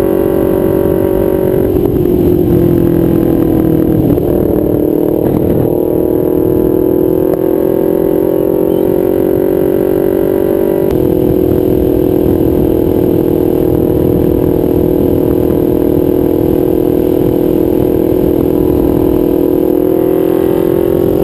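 2012 Kawasaki Ninja 250's parallel-twin engine running loud through a nearly straight-piped DanMoto XG-1 exhaust while cruising, heard from on the bike. The engine note dips and climbs back about two to four seconds in, holds steady for most of the time, and rises slowly near the end.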